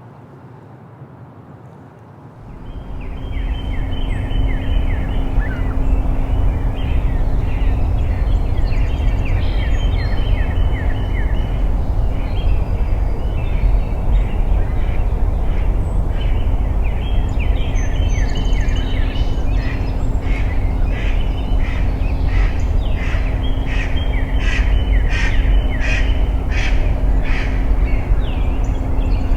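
Mixed spring woodland birdsong, the singers including northern cardinals, American robins, wrens and sparrows, with rapid repeated notes throughout and sharper calls near the end. Beneath it runs a steady low rumble of road traffic and a swollen creek, with a faint steady hum. It begins about two and a half seconds in, after a near-silent start.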